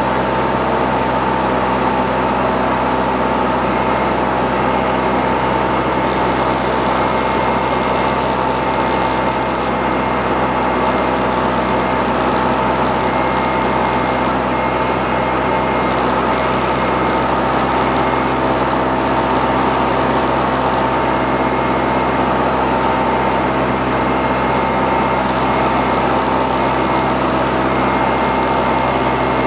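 Morane-Saulnier MS.880B Rallye light aircraft's piston engine and propeller running steadily in cruise flight, heard inside the cockpit.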